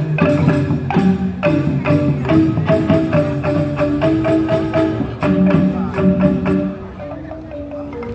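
Balinese joged bumbung gamelan playing: bamboo xylophones (grantang) struck in fast, busy patterns with percussion. The music thins out and softens for about a second near the end.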